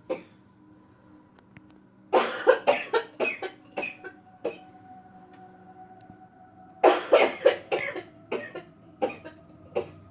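A person coughing in two rapid fits, each about ten short coughs in quick succession. The first starts about two seconds in and the second about seven seconds in.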